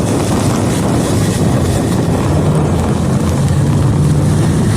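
Vehicle running through a severe storm: a steady loud rushing rumble with a low engine hum underneath, and wind buffeting the microphone.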